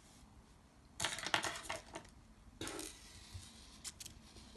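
Light clicking and rustling of a small plastic buckle slider, ribbon and pins being handled on fabric, in a burst about a second in and a shorter one a little later, with a few stray clicks near the end.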